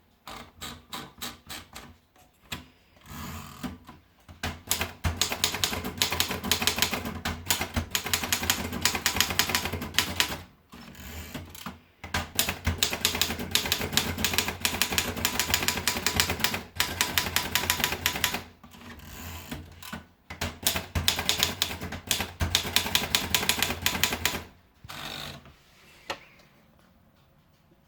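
Erika model 11 manual portable typewriter being typed on: fast runs of key strikes with a few short pauses, ending with a few last strikes shortly before the end.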